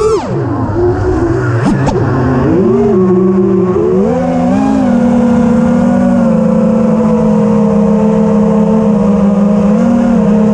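Motor whine of a 5-inch FPV racing quadcopter's four DYS Storm 2207 2550 kV brushless motors spinning three-blade props, changing pitch with the throttle. The pitch drops sharply as the throttle is cut at the start, swoops back up twice, then holds a steady whine for most of the time, with a short dip near the end. A couple of short clicks come about two seconds in.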